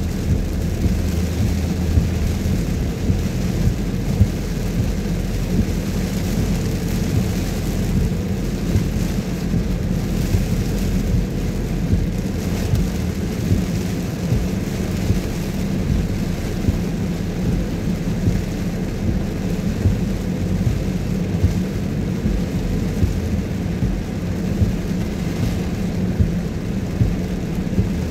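Car driving through deep flood water: a steady low engine rumble under a constant rushing wash of water.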